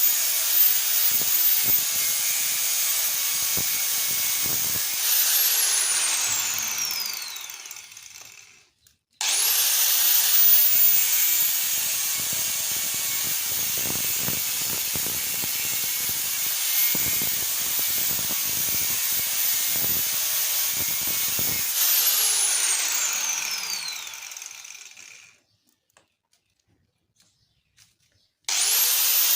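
Angle grinder running at full speed with a high whine. It is switched off twice and winds down, the whine falling in pitch over about three seconds each time, and each time it is started again with a quick rising whine.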